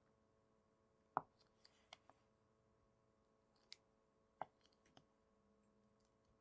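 A chef's knife slicing down through a block of cheese and knocking onto a wooden cutting board: two sharp knocks about three seconds apart, with a few fainter clicks between. Near silence otherwise.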